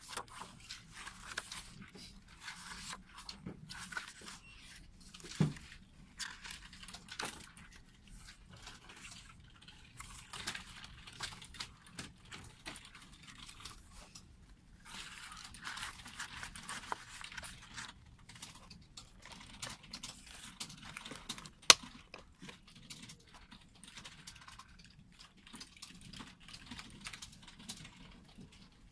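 Hands handling a fold-out disc package: rustling and flicking of the booklet's paper pages, with light taps and clicks on the plastic disc trays. One sharp click about three-quarters of the way in is the loudest sound.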